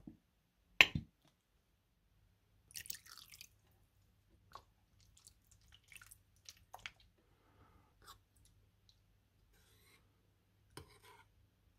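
Wet slime-making sounds: glue squirting and sputtering from squeeze bottles into a bowl, small clicks, and a metal spoon stirring the sticky mix near the end. A single sharp knock about a second in is the loudest sound.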